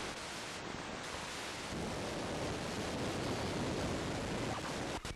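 Steady rushing noise with a fluctuating low rumble, typical of wind buffeting the microphone.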